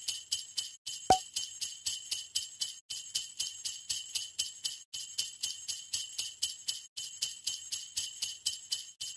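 Jingling percussion shaken in a steady rhythm, about five shakes a second. It repeats as a loop, breaking off briefly every two seconds.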